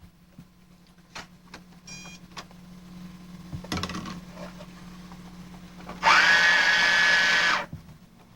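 Toy electronic cash register being rung up: keys clicking, a short beep about 2 s in, then a loud buzzing electronic tone that rises quickly and holds for about a second and a half from about 6 s in.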